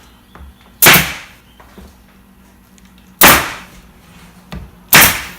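Stapler firing three times, driving staples through a quarter-inch plywood panel into a chair seat to tack it in place; three sharp, loud shots, the first two about two and a half seconds apart, the last under two seconds later.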